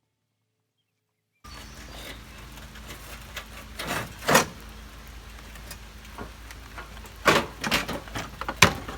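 Sharp clicks and knocks of trim parts being worked loose and handled on a pickup's front end, over a steady low hum, with the loudest knock about four seconds in and a cluster more near the end. The first second and a half is silent.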